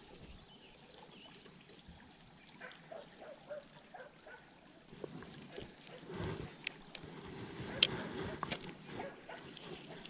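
Faint handling noise from a spinning rod and reel: scattered sharp clicks and rustling that start about halfway through, the sharpest click a little after that.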